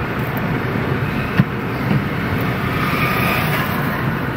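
Steady engine and road noise of a car driving slowly in town traffic, heard from inside the cabin, with a single sharp click about a second and a half in.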